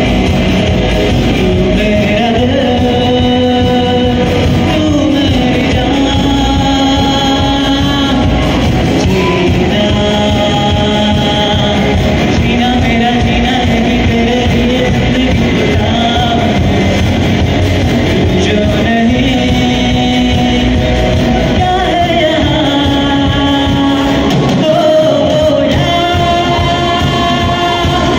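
Live rock band heard in a large hall: a male singer holds long, sliding sung notes over amplified electric guitars, an acoustic guitar and a drum kit, loud and continuous.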